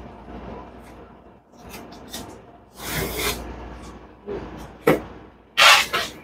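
Handling noises from work on an FBD frozen-drink machine's plastic panels: a run of irregular knocks, clunks and scrapes, with a brief rushing noise about three seconds in and the loudest clattering burst near the end.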